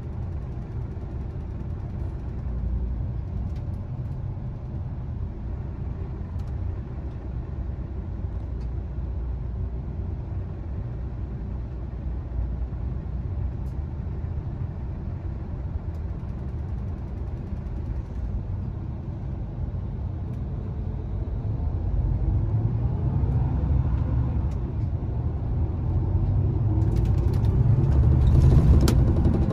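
Volvo B11RT coach's six-cylinder diesel engine and road noise heard from inside the passenger cabin: a steady low rumble while the coach rolls slowly. It grows louder, with a rising engine note, over the last several seconds as the coach picks up speed.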